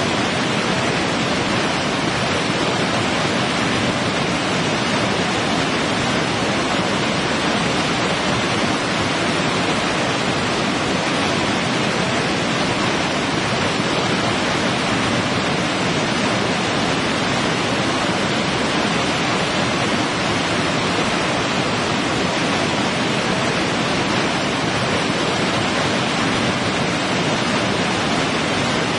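Waterfall: water pouring down rock in a steady, even rush that does not change.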